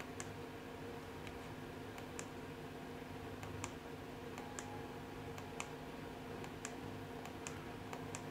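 Faint clicks of a small remote control's button being pressed over and over, roughly once a second, stepping the ceiling light through its modes. A faint steady low hum sits underneath.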